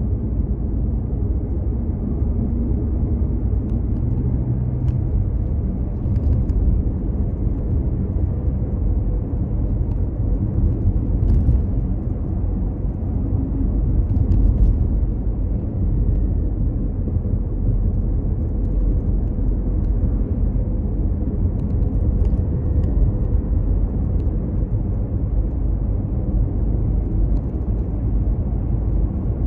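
Steady low rumble of road and engine noise inside a Mazda CX-5's cabin as it drives at a constant pace.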